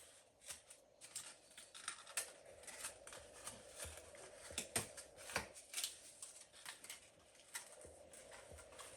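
Packaging being handled as the camera is unpacked: scattered light clicks and short rustles, irregular and soft.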